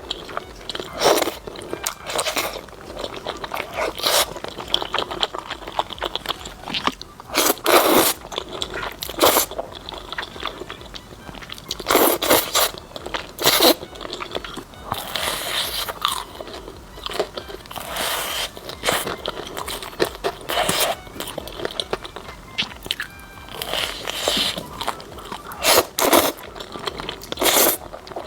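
Close-miked eating: loud crunching bites into crispy fried chicken, with chewing between them, at irregular intervals.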